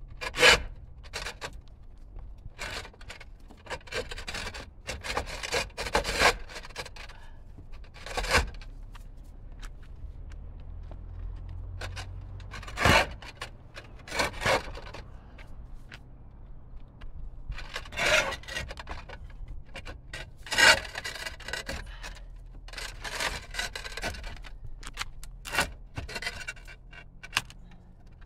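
Roof tiles being lifted and slid up by hand, grating and knocking against the neighbouring tiles in a string of short scrapes and knocks, some brief, some drawn out for about a second.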